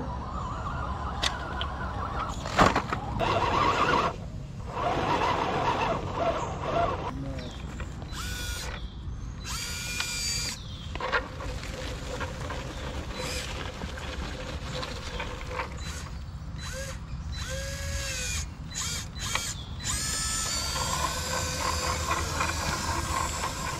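Electric motor and gearbox of a 1/10-scale RC crawler pickup whining in short bursts as the throttle is worked while it climbs over rocks, the pitch rising and falling with each push, with occasional clicks and knocks.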